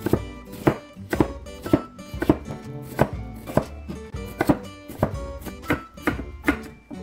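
Kitchen knife slicing Korean radish into matchsticks on a plastic cutting board, a crisp chop against the board about twice a second, over light background music.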